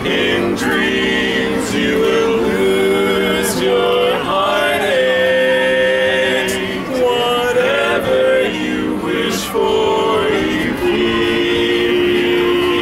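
A barbershop quartet of men's voices singing a slow romantic song a cappella in close harmony, holding long chords that change every second or two.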